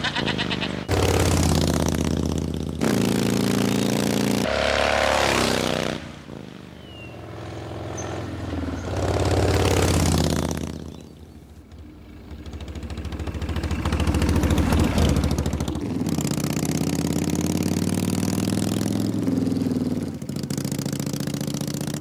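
Motorcycle-and-sidecar engine revving up through the gears, its pitch stepping up at each gear change, then fading away and coming back twice as it drives past.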